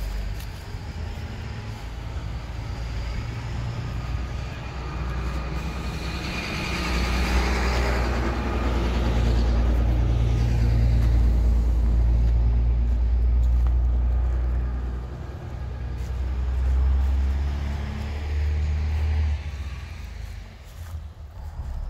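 Car moving slowly along an unpaved dirt road: a steady low engine hum with tyre noise, swelling louder for several seconds in the middle and easing off near the end.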